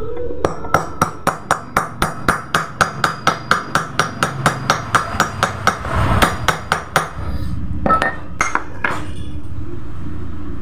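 Hammer tapping on a steel socket used as a drift, about four light metal-on-metal taps a second, then a short pause and a few more taps, seating a seal evenly into the hub of a Honda scooter's rear CVT pulley.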